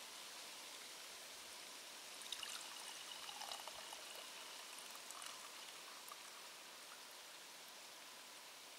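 Faint, steady rush of flowing water, with a few light ticks a couple of seconds in.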